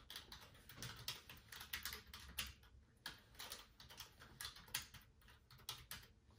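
Typing on a computer keyboard: a quick, irregular run of key clicks with short pauses between bursts.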